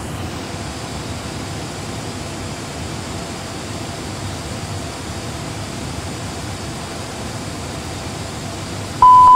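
Steady rushing airflow noise in an Airbus A320 flight simulator cockpit, gliding with both engines failed. Near the end a loud, steady warning tone starts abruptly: the alert for the emergency electrical configuration.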